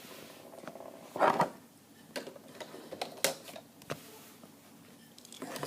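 Small hard plastic toy parts being handled and set down: a scattering of separate clicks and knocks, with a louder cluster about a second in.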